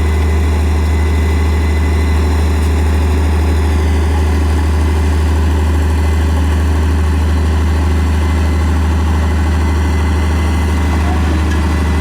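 Bulldozer's diesel engine running steadily with a deep, constant low hum and no change in speed.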